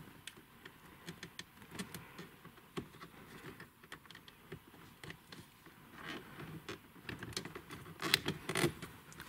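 Plastic trim panels being handled and pressed into place around a car radio in the dashboard: scattered light clicks and taps, with a few louder clicks about eight seconds in.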